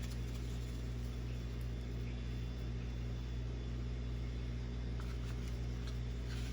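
Steady low hum, like an appliance motor or electrical mains hum, holding the same pitch throughout.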